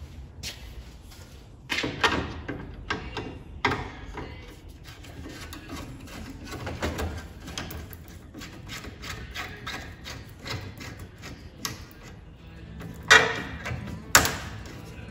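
Hand-tool work in a car's engine bay: a screwdriver working at a radiator hose clamp, a run of light clicks and taps with a few louder metal clunks about two seconds in, near four seconds, and twice near the end.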